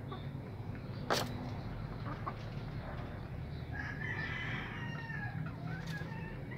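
A rooster crows once, beginning a little under four seconds in and lasting close to three seconds, over a steady low background rumble. A single sharp click comes about a second in.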